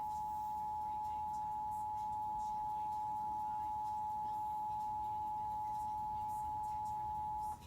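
Emergency Alert System attention signal: the two-tone 853 and 960 Hz alert held steady and unchanging, cutting off abruptly near the end, as broadcast to open a required monthly test message.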